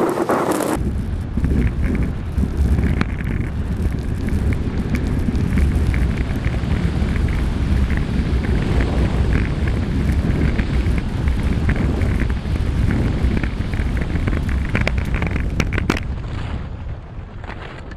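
Strong wind buffeting the camera microphone of a downhill skier running at high speed, a heavy low rumble with the skis scraping and clattering over hard, rutted piste. The rush eases near the end as the skier slows.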